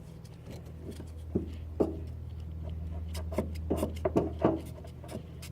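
Light clicks and knocks from a rubber fuel hose and inline fuel filter being handled and pushed together, scattered over a steady low hum.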